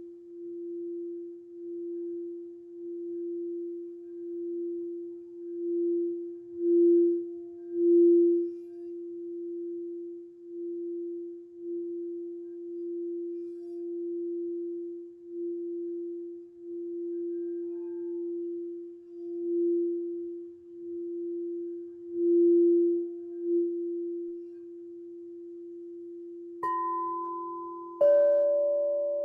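Singing bowl played around its rim, holding one steady low tone that swells and fades in slow pulses. Near the end two higher-pitched tones are struck, one after the other, each ringing on over the first.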